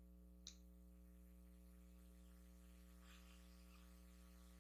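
Near silence: a faint, steady electrical hum, with one faint click about half a second in.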